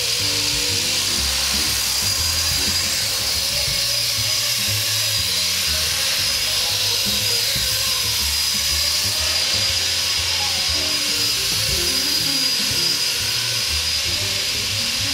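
Blade SR electric radio-controlled helicopter in flight, its motor and rotor giving a steady high-pitched whine, with background music underneath.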